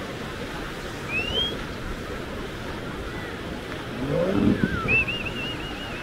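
Caspian Sea waves washing onto a sandy beach, a steady rush of surf. A voice calls out about four seconds in, and short high chirps are heard about a second in and again near the end, the last one a brief warbling trill.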